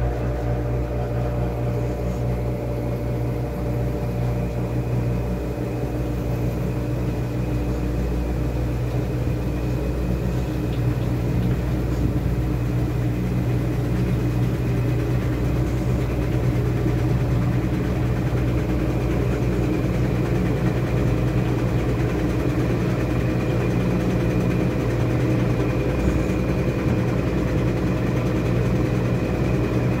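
Top-loading washing machine with a central agitator in its spin cycle: the motor hums steadily as the basket spins the clothes, growing slightly louder about ten seconds in.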